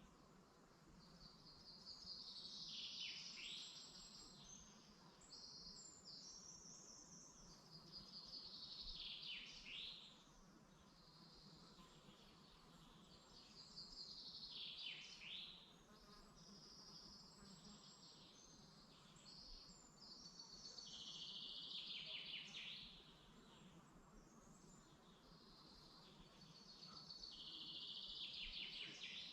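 A songbird singing faintly: five similar phrases, each two to three seconds long, a fast high trill that falls into a lower flourish at its end, repeated every five or six seconds.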